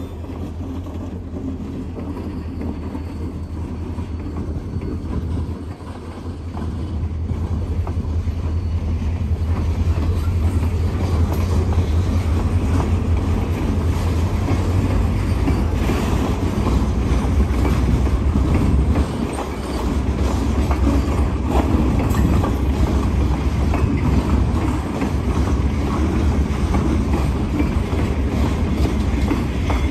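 Freight train passing: low rumble of the Lake State Railway GP40M-3 diesel locomotive and its road slug, growing louder a few seconds in, then loaded hopper and gondola cars rolling by with a steady rattle and wheels clicking over the rail joints.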